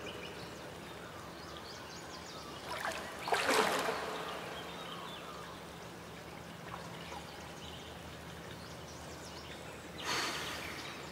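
Outdoor ambience of softly trickling water, with a louder rush of noise about three seconds in and again near the end.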